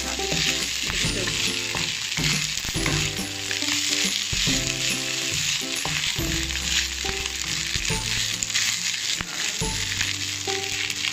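Fried rice sizzling in a hot non-stick wok, stirred and tossed with a wooden spatula. The rice is being fried dry until crisp.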